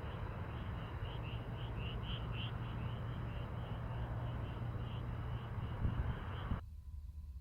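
Outdoor ambience: a steady low wind rumble under a small creature's high chirping call, repeated about four times a second. Both cut off suddenly near the end.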